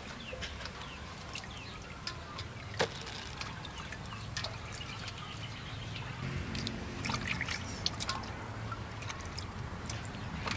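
Water splashing and dripping in a stainless steel bowl as napa cabbage leaves are washed by hand and lifted out, with many small splashes and drips.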